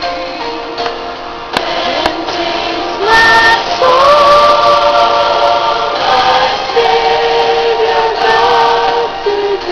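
A woman singing a lullaby in slow, long held notes, louder from about three seconds in.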